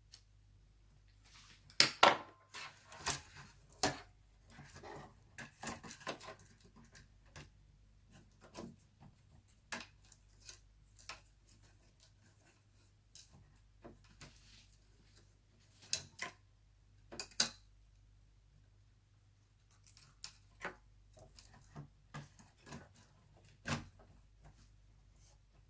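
Irregular clicks and taps of Alienware M17x R2 laptop parts being handled and fitted together by hand during reassembly, busiest in the first few seconds, then scattered single taps. A faint low hum runs underneath.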